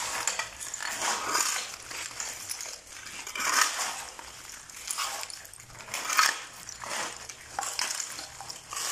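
Steel shovel blades scraping on a concrete floor and churning through a mix of soil, sand, plastic bags and cans, in repeated strokes about a second apart.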